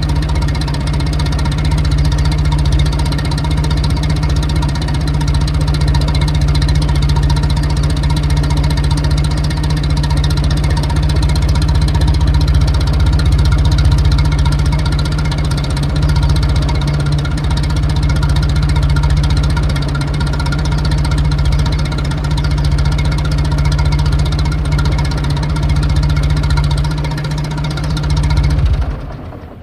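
1922 Morris Bullnose's 11.9 HP side-valve Hotchkiss four-cylinder engine ticking over steadily, heard at the exhaust. Near the end it is switched off and the running cuts out and dies away.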